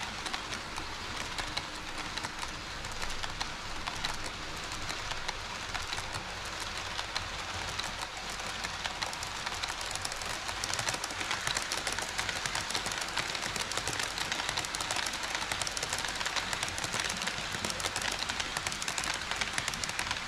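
HO scale model train running on KATO Unitrack: a steady rolling rattle with dense fine clicking of wheels on the rails, growing a little louder about halfway through.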